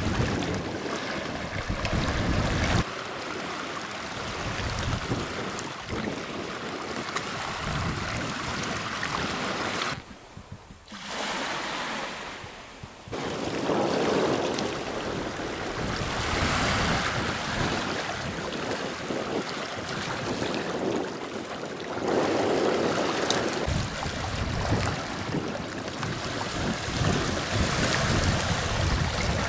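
Small Baltic Sea waves lapping and washing over shoreline stones, swelling and ebbing. Wind rumbles on the microphone in the first few seconds and again near the end, and the wash goes quieter for a few seconds about a third of the way in.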